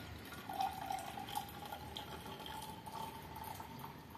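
Hot water poured from an electric kettle into a glass jar: a faint steady trickle whose pitch climbs slightly as the jar fills.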